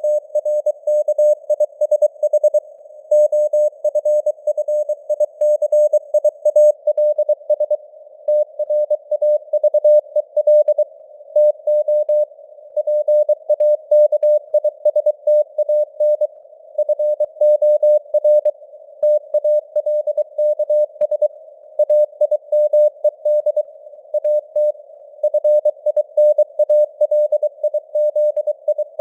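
Morse code (CW) at 23 words per minute: a single mid-pitched beep keyed on and off in dots and dashes, with short pauses between words. A narrow hiss of simulated radio noise sits under the tone between the elements.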